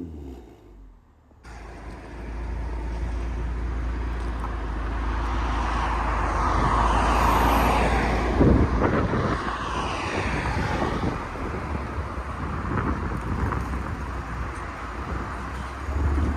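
Mercedes-Benz W204 C300 with an aftermarket valved quad-tip exhaust, driving at a steady pace: a low, even exhaust drone under road and tyre noise, starting after a brief quiet gap and swelling somewhat louder through the middle.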